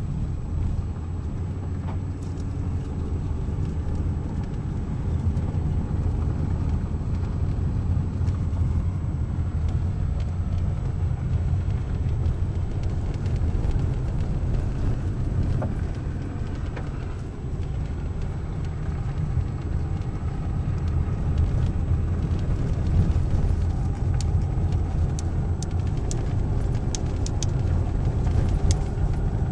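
Car driving up an unpaved gravel road, heard from inside the cabin: a steady low rumble of engine and tyres on the dirt surface, with a few light ticks near the end.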